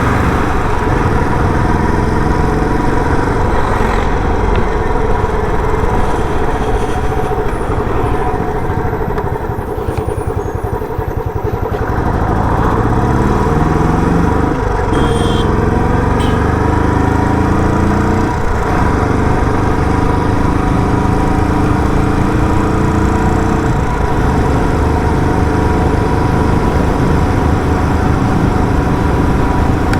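Royal Enfield Bullet 350's single-cylinder engine running through its stock silencer while riding. It eases off and quietens about ten seconds in, then pulls up through the gears, rising in pitch with gear changes about fifteen, eighteen and twenty-four seconds in.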